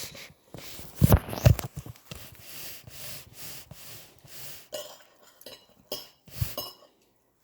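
Close-up eating and table-handling noises: two loud knocks about a second in, then scattered quieter clicks and crackles of dishes and utensils.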